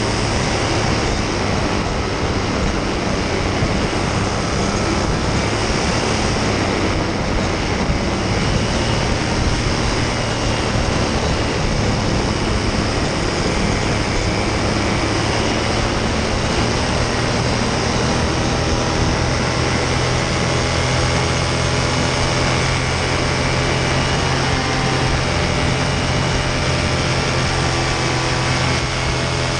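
Paramotor engine and caged propeller running steadily in flight, an even drone that holds its level throughout.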